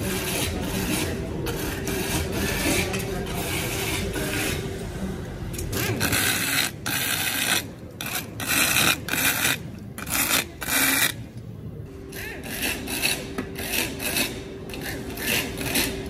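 Handheld air-powered screwdriver running in repeated short bursts, driving screws into a metal ceiling-fan canopy cover, with rubbing and scraping of the parts and a steady machine hum behind.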